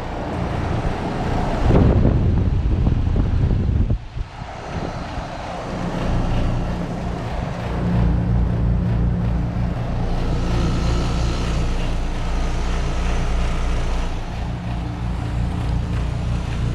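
A 2008 Rheem Classic RPNL 5-ton heat pump's outdoor unit running in heat mode: a steady low compressor hum with the outdoor fan running. A louder, rougher rumble comes between about two and four seconds in, then drops off suddenly.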